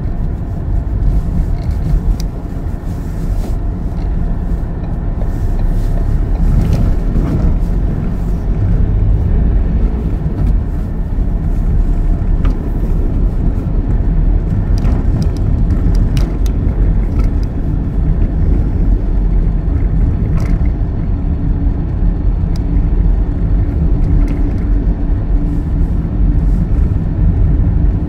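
Road vehicle driving on an icy, snow-covered road, heard from inside the cab. The engine and tyre noise make a steady low rumble, with occasional sharp clicks and ticks.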